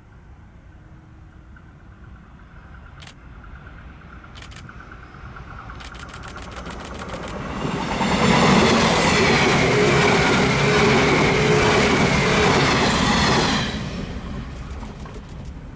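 485-series 'Resort Yamadori' electric train approaching, with a rumble that grows louder and runs of sharp clicks from the wheels and rails. It passes close by for about five seconds with loud wheel-on-rail noise and a slightly falling whine, and the sound drops off sharply as the last car goes by, leaving a fading rumble and a few clicks.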